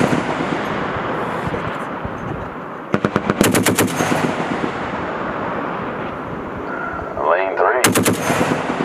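M2 Browning .50-calibre heavy machine gun firing two short bursts, one about three seconds in and one near the end. Each burst trails off into a long rolling echo.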